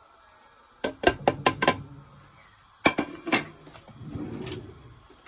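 A ceramic plate knocking against the rim of an aluminium pressure cooker as the last ground spices are tapped off it into the pot: a quick run of about six sharp clinks, then two more about a second later, followed by softer handling noise.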